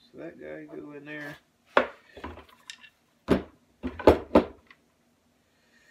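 Sharp metallic clinks and knocks, about six within two and a half seconds, as short steel rod pieces are handled and fitted into a rifle stock's recoil-lug groove.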